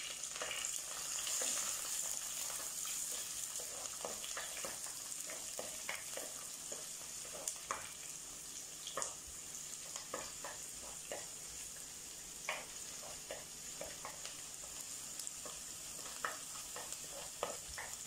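Chopped shallots, garlic, ginger, green chillies and curry leaves sizzling in hot coconut oil in a clay pot, with the steady hiss broken by irregular scrapes and taps of a wooden spatula stirring them against the pot.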